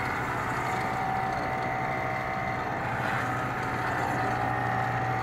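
FRC competition robot's electric drive motors and gearboxes whining steadily as it drives across a hard floor.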